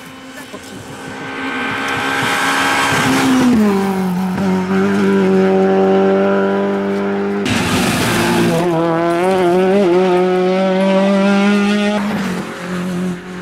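Rally car engines at high revs: a car's engine note holds high, then drops sharply about three and a half seconds in. After an abrupt break about seven and a half seconds in, a second car's engine revs up and down quickly, then drops near the end.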